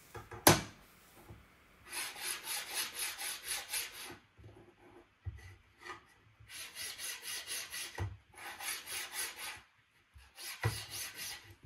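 Steel carriages of unlubricated miniature linear guide rails being slid rapidly back and forth along the rails by hand. This gives a dry rasping rattle of about five strokes a second, in four short runs, done to judge how noisy each rail is. A sharp click about half a second in is the loudest sound, with lighter clicks later on.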